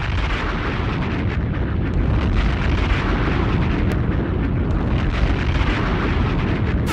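Crowd noise from packed gymnasium bleachers, heard as a loud, steady, distorted roar with no clear voices.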